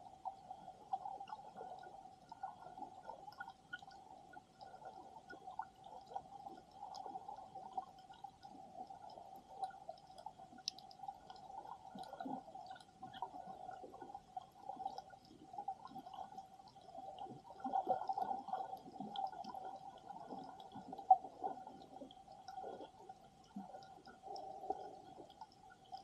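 Underwater sound through a submerged camera: muffled water movement and scattered faint clicks and crackles, under a steady high-pitched hum. One sharp click comes about three-quarters of the way through.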